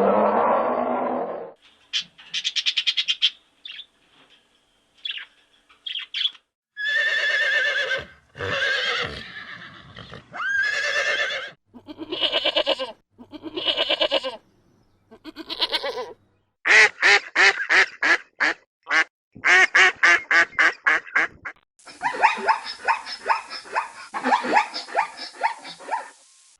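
Farm animals calling one after another: a low call dies away at the start, then a series of separate pitched calls with wavering pitch, then quick runs of short repeated calls in the second half.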